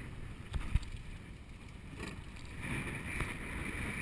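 Wind buffeting the microphone on a small open fishing boat in choppy water, a steady low rumble, with two short knocks just under a second in.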